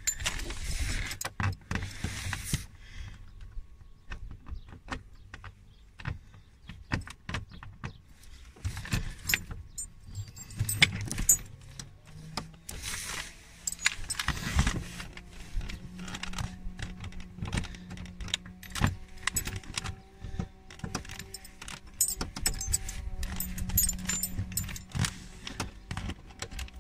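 Small metal fixings clinking and jingling in a hand, with scattered clicks and knocks of a screwdriver on car trim. About halfway through, a low steady hum joins in.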